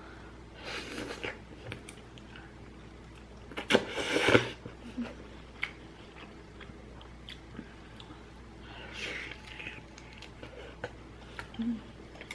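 Close-up eating sounds from a bowl of seafood-flavoured udon noodles: chewing and mouth noises with scattered small clicks, and a loud noisy burst about four seconds in.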